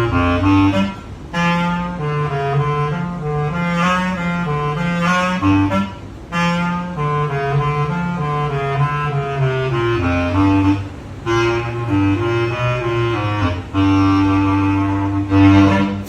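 Ensemble of bass clarinets playing a heavy metal piece: low held notes in several parts under a higher moving line, with short breaks about a second in, around six seconds and around ten seconds.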